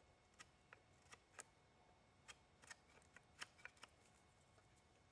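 Silver Fox Bushcraft Knife cutting into a wooden spoon blank: a series of short, faint knife cuts and scrapes at an uneven pace, stopping about four seconds in.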